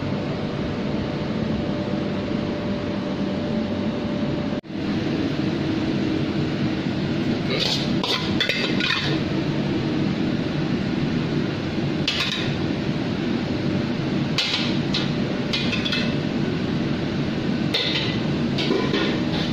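Steady drone of commercial kitchen ventilation, broken by a brief dropout about four and a half seconds in. From about halfway on, several bursts of a metal utensil clinking and scraping against a wok and a plate as fried rice is served out.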